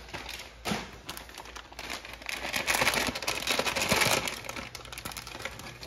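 Plastic bag of shredded cheddar cheese crinkling as it is handled, a dense crackle loudest in the middle.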